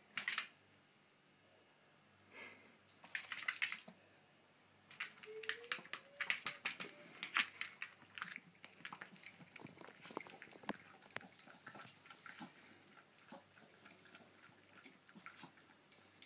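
A miniature pinscher licking and lapping ice cream, a run of small wet smacking clicks. Short bursts come about three seconds in, then a dense stretch from about five seconds that thins out toward the end.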